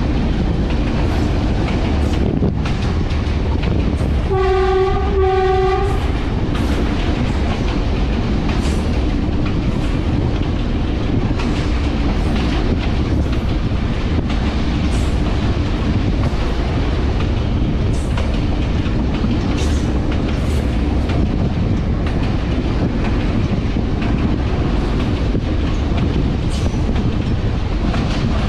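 GE D10E-250 diesel locomotive running under way, a steady rumble of engine and wheels on rail. About four seconds in, its horn sounds two short blasts.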